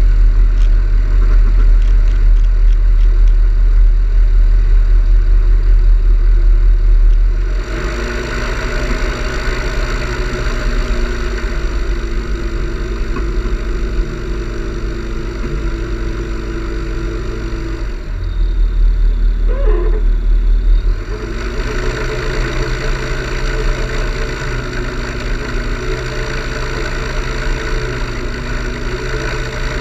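A steady engine drone with a heavy low rumble. Its tone and level shift about seven and a half seconds in and again between about 18 and 21 seconds, with a brief rising whistle near 20 seconds.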